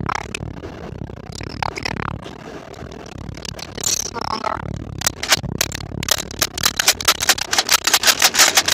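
Plastic and cardboard packaging scraping and rustling as a toy Nerf blaster is handled out of its box, then from about five seconds in a fast, even run of sharp rattling clicks that grows louder.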